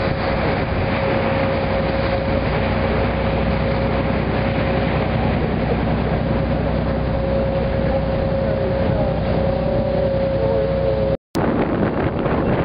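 Motor launch's engine droning steadily underway, with a steady whine over the rush of water. About eleven seconds in, the sound breaks off for an instant and gives way to wind buffeting the microphone.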